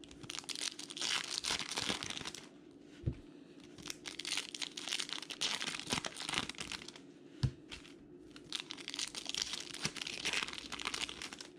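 Foil wrappers of Bowman Chrome baseball card packs crinkling and tearing as they are pulled open by hand, in three spells of crackling with a few sharp clicks between.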